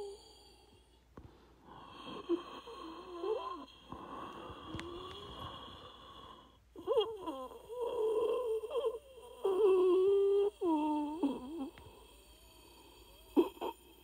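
A person breathing hard with wheezing breaths, each carrying a whistling pitch that wavers up and down. The breaths grow louder and more strained about seven seconds in, then drop away, with one short catch of breath near the end.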